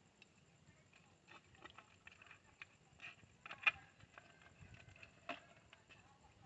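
Faint scattered clicks and light knocks of small parts and tools being handled during reassembly of a motorbike headlight, the sharpest a little past halfway and another about two-thirds of the way in.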